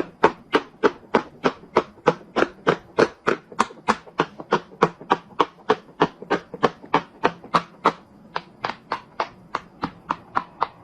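Silicone pop-it fidget toy having its bubbles popped one after another with the fingers, a steady run of sharp pops at about three a second.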